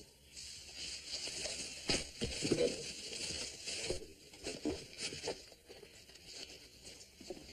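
Faint rustling and handling of cloth and hands, with a few soft clicks.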